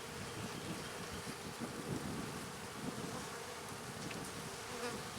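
Honey bees buzzing steadily around an opened hive box, many bees together making a continuous hum.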